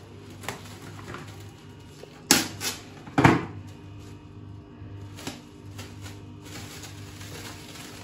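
Plastic cling wrap crinkling and rustling as it is pulled off the roll and pressed over a bowl, with two loud sharp snaps a little over two and three seconds in.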